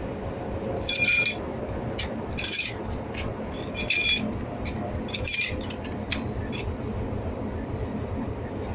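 Metal clinking and ringing on a railway coupling as a shuntman handles it with a tool. The clinks come in short clusters, about six times in the first two-thirds, over a steady low rumble from the locomotive.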